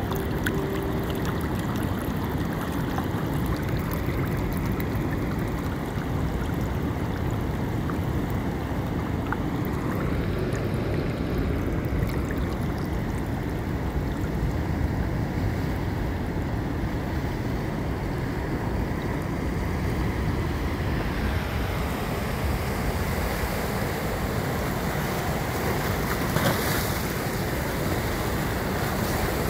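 Ocean surf: a steady rush of waves washing in.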